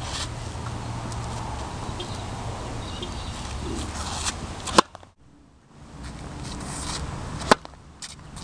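Tennis serves: a racket strikes the ball with a sharp pop about five seconds in and again near the end, over a steady low wind rumble on the microphone.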